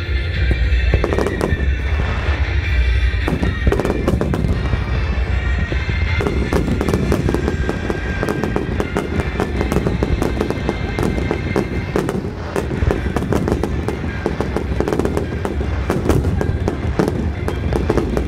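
Aerial firework shells bursting in rapid succession, a dense continuous run of bangs and crackling.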